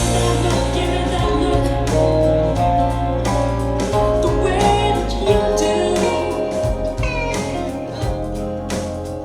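Recorded music playing: a song with a singing voice over guitar and a heavy bass line.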